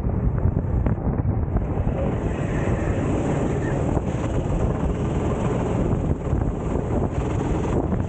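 Wind rushing over the microphone of a racing kart's onboard camera at speed, loud and steady, with the kart's engine running underneath.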